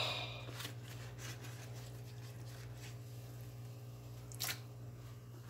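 Faint wet squishing of raw beef liver being handled by hand and pulled from its plastic wrapper, with one short sharper noise about four and a half seconds in. A steady low hum runs underneath.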